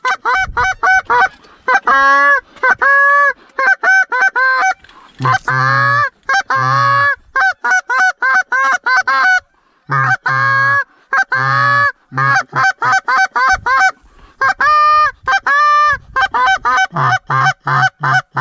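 Canada goose call blown hard and close: fast runs of short clucks and longer honks with brief pauses between runs, calling back a flock of circling Canada geese. It stops abruptly at the end.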